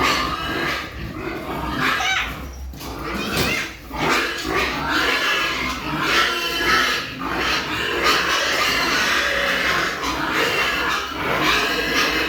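Pigs squealing and grunting, several at once and almost without a break, with a short lull about three and a half seconds in.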